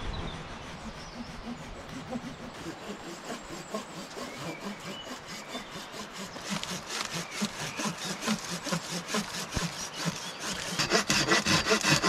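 Hand pruning saw cutting through a tree branch with quick, steady back-and-forth strokes, fainter at first and loudest in the last second or so.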